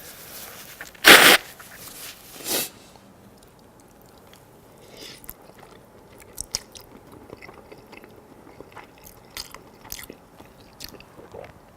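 Close-miked mouth sounds of a person eating spaghetti: soft, wet clicks and smacks of chewing scattered throughout. About a second in there is a loud, short rush of breathy noise, and a smaller one follows near the 2.5-second mark.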